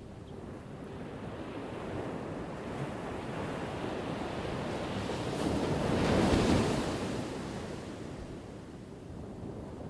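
Ocean surf: one wave's rush swells, is loudest about six seconds in, then fades as it washes back.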